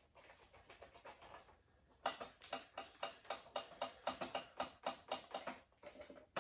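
Quick series of light metal knocks, about four or five a second, starting about two seconds in after a few faint ticks. It is a part being tapped into a tight fit on a freshly painted motorcycle frame, where the paint has narrowed the clearances.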